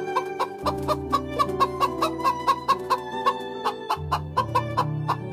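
Chickens clucking in a quick, even run of short clucks, about four a second, over background music.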